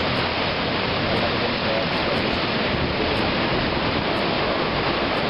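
Rough, storm-driven sea surf and wind making a steady, loud rushing noise with no break.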